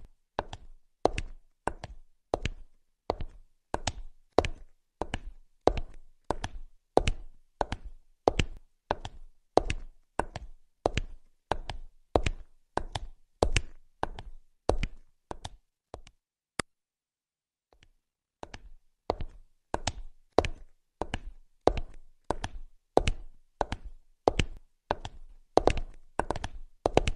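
Sharp knocks at a steady pace of about two a second, each with a short ringing tail. They break off for about a second about two-thirds of the way through, then carry on.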